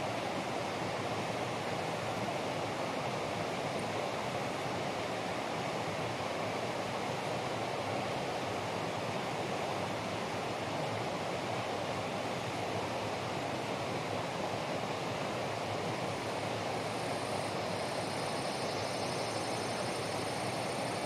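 Steady rushing water noise, even in level throughout. Near the end a faint, high-pitched pulsing buzz joins in.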